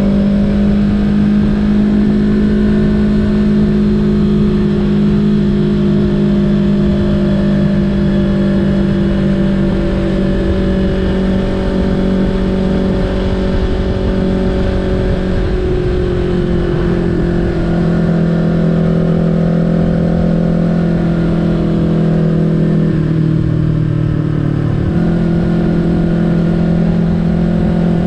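Yamaha YZF-R3's parallel-twin engine running at a steady cruise under a rider, with wind rush. The engine note eases down a little after about 17 seconds, drops lower near 23 seconds, then steps back up a couple of seconds later.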